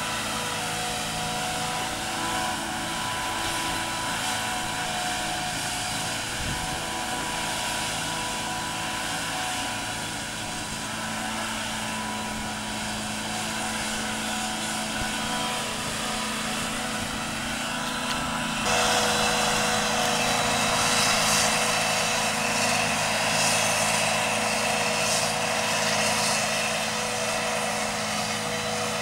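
Claas self-propelled forage harvester chopping grass, with a John Deere tractor pulling a trailer alongside: a steady machine drone with a held high whine. It gets suddenly louder and brighter about two-thirds of the way in.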